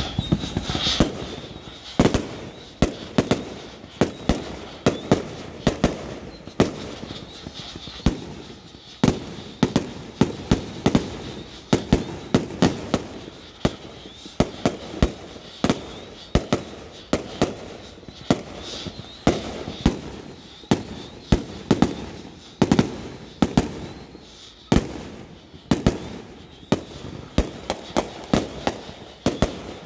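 Fireworks and firecrackers going off in a long run of sharp bangs, irregular, about one to three a second.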